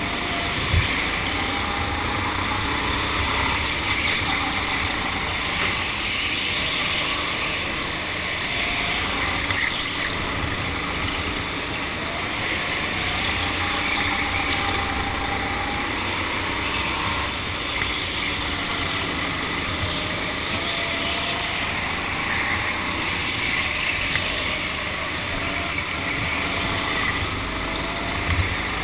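Go-kart motor running at speed, its pitch rising and falling again and again as the kart accelerates and slows through the corners, over a steady rushing noise. A short knock comes about a second in and again near the end.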